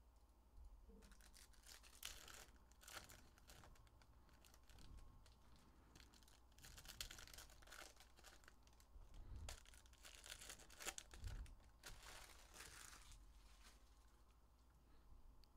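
Faint tearing and crinkling of foil Panini Prizm hobby pack wrappers being ripped open by hand, in several short bursts.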